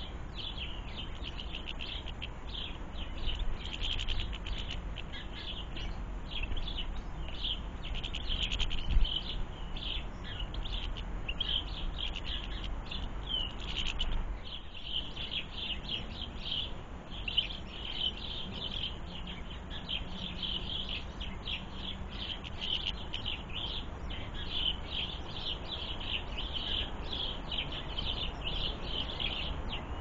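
Small garden birds chirping and twittering, many quick overlapping calls that keep on without a break. There is a single knock about nine seconds in.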